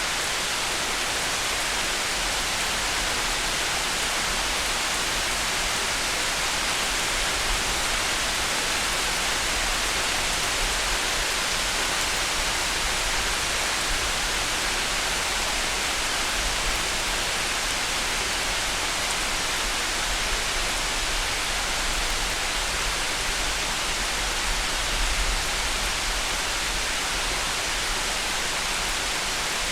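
Steady rain falling in a light thunderstorm: an even hiss with no breaks.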